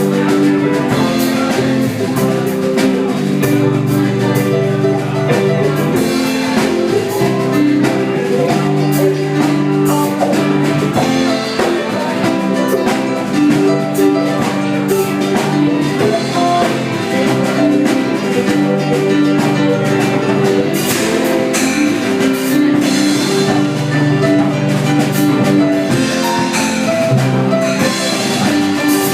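Music with plucked guitar and drums: a steady, upbeat instrumental.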